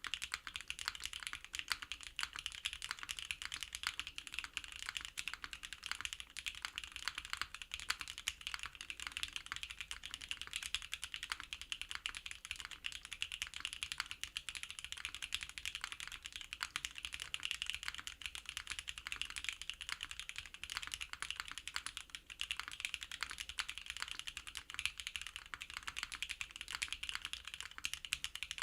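Continuous typing on a NEO65 custom mechanical keyboard fitted with MMD V4 Cream linear switches: many keystrokes a second without a pause, each a short, sharp clack.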